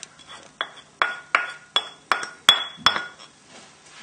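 A small dish tapped repeatedly against a pan to knock chopped dill out: about ten short, ringing clinks, roughly three a second, that stop near the end.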